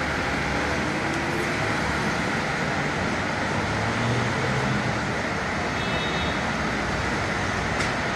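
Steady rumble of street traffic and running engines, with no clear single event.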